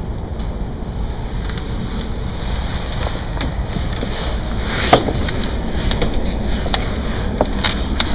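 Constant deep rumble of unexplained origin, felt as a vibration and first taken for a plane, with a sharp click about five seconds in.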